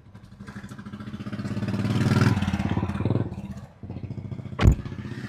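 Maruti Suzuki Swift petrol engine, running on a replacement ignition coil, revved up and let back down, with a second short blip; the misfire codes have just been cleared. A single sharp knock comes near the end.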